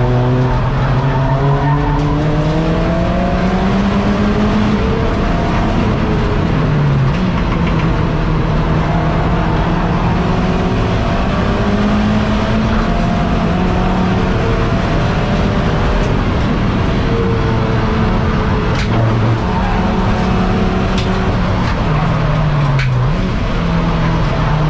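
SEAT Leon Cupra race car's engine heard from inside the cabin under racing load. It revs up steadily, then holds high revs with brief dips in pitch at gear changes. A few sharp clicks come near the end.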